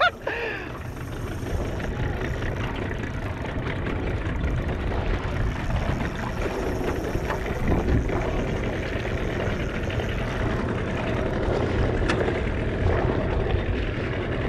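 A boat engine idling steadily, mixed with wind and water noise.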